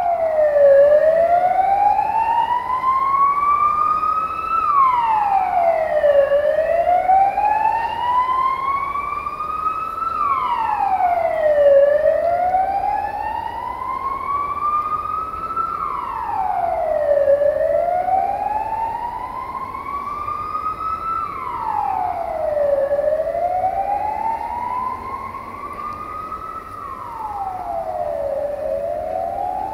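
A wailing siren going round and round, about once every five and a half seconds. Each cycle rises slowly in pitch for about four seconds, then drops back quickly.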